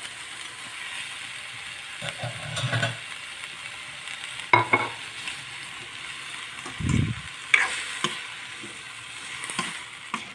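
Bean sprouts and fried tofu sizzling in a wok as a metal spatula stirs them, with scraping and several sharp clacks of the spatula against the wok.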